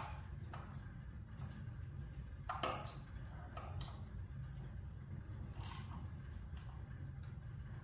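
Metal clinks and scrapes of hand tools on a tractor battery terminal as a cable clamp is worked onto a battery post that it won't grip. Scattered short knocks, the loudest about two and a half seconds in, over a steady low hum.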